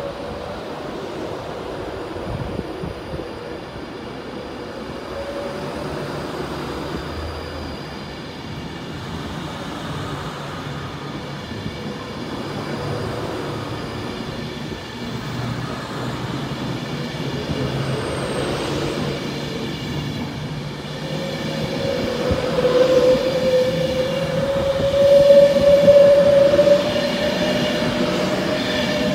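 Class 390 Pendolino electric train pulling out and gathering speed, with a steady low hum from its traction equipment. In the second half a whine rises slowly in pitch and grows louder as the carriages pass.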